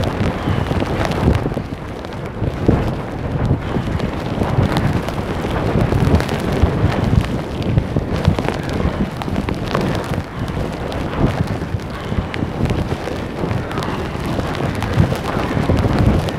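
Heavy rain and gusting storm wind, the wind buffeting the phone's microphone in a loud, unsteady rush with frequent crackling hits.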